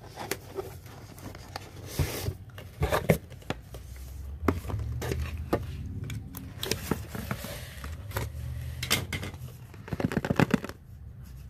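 Cardboard and paperboard boxes being handled and scraped, with a box cutter slitting the tape on a small white box; a quick run of sharp clicks and rustles near the end as the box is worked open.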